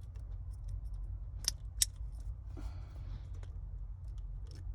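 Small clicks and taps of a plastic wiring-harness connector being worked loose by hand, with two sharp clicks about a second and a half in, over a steady low rumble.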